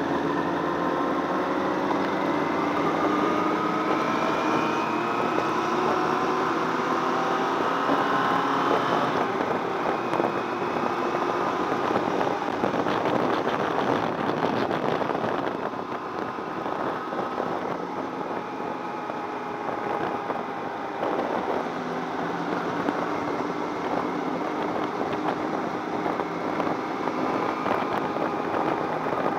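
Yamaha inline-four sportbike engine heard from the rider's position. Its pitch climbs steadily through the first several seconds as the bike accelerates, then it runs at a steadier pitch while cruising, with road and wind noise.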